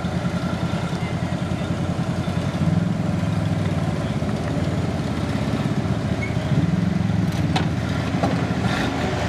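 An engine idling steadily with a low, even pulse. A couple of faint knocks come near the end.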